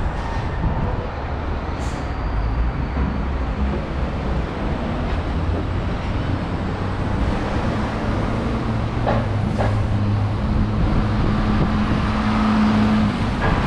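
City road traffic running steadily below. From about halfway through, a heavy vehicle's engine drones at a steady pitch over the rumble of passing cars.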